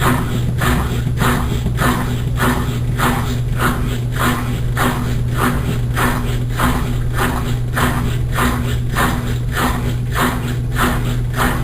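Consul Maré Super top-loading washing machine agitating: a steady motor hum under a rhythmic swish of water and clothes about twice a second.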